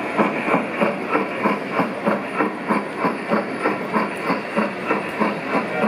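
G-scale model steam locomotive's onboard sound system chuffing steadily as the train runs, about three hissing chuffs a second.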